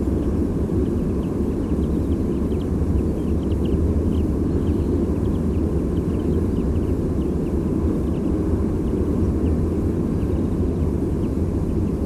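Many short, high call notes from small migrating passerines (finches, wagtails and pipits) passing overhead, over a steady low rumble of distant sea surf.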